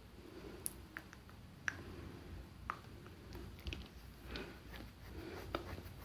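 Faint, scattered wet clicks and smacks of fingertips rubbing lip balm onto the lips, with the lips parting and pressing together.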